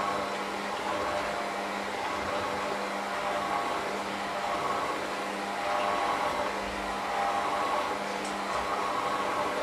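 Electric hand mixer running steadily with a motor hum, its beaters working a floury mixture in a stainless steel bowl.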